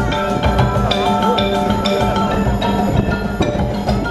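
Live percussion ensemble playing: quick struck notes on marimbas and other mallet instruments over a steady pulse of drums.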